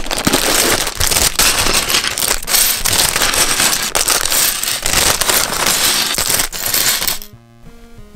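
Cardboard LEGO box opened and a plastic parts bag torn open and crinkled, with the LEGO bricks inside clinking against each other. It stops about seven seconds in, leaving quiet background music and a few small plastic clicks.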